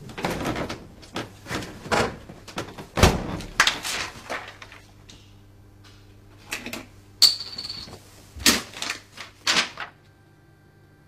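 A run of irregular sharp clicks and knocks, with a brief high beep about seven seconds in.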